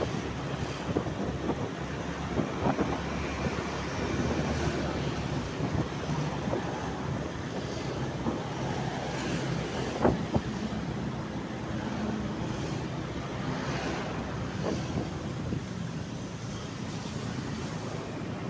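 Steady wind noise buffeting the microphone over a low rumble, with a few short knocks.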